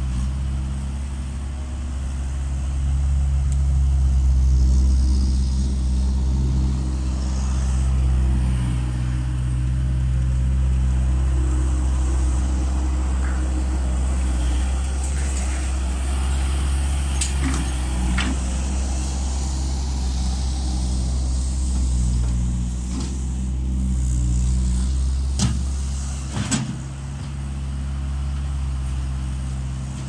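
Bobcat S175 skid-steer loader's diesel engine running under load as it works its bucket, its drone swelling and easing. About four sharp knocks or clanks come in the second half.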